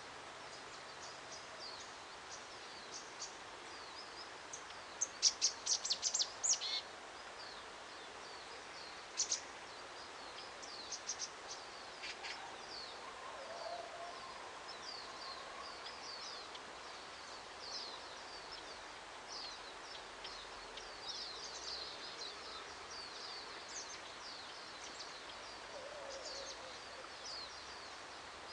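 Small birds singing and chirping over a faint steady hiss of outdoor background noise, with a burst of loud, rapid chirps about five seconds in.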